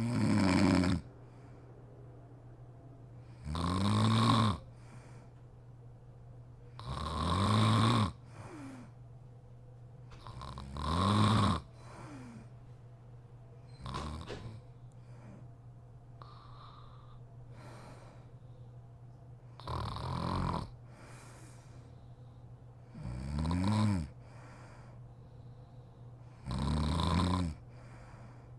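A sleeping woman snoring, one snore of about a second roughly every three and a half seconds, with a longer pause of about six seconds midway. A faint steady low hum runs underneath.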